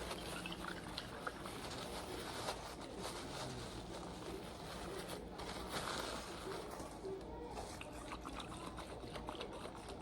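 Liquid trickling and pouring steadily.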